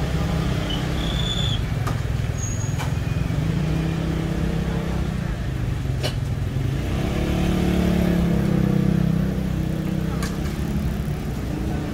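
A motor vehicle's engine running close by over steady street noise, getting louder about seven to nine seconds in, with a few sharp clicks.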